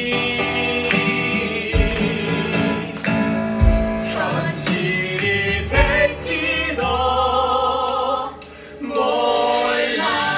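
Musical theatre song sung by male and female voices together over band accompaniment, with low drum hits every couple of seconds. The music drops away briefly near the end, then comes back in.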